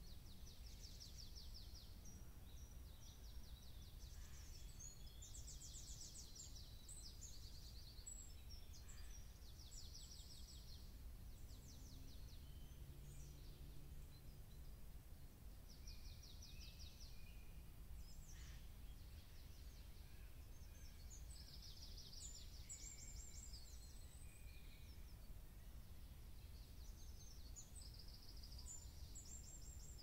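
Small woodland songbirds singing faintly, short rapid high-pitched trills repeated again and again, over a low steady background rumble.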